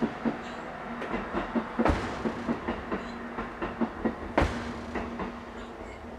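Sledgehammer strikes: two heavy blows about two and a half seconds apart, with lighter knocks and rattles between them.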